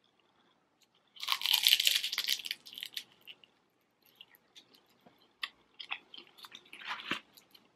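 Crispy fried wonton being eaten: a loud burst of crunching starts about a second in as it is bitten, followed by chewing with scattered sharp crunches and another cluster of crunches near the end.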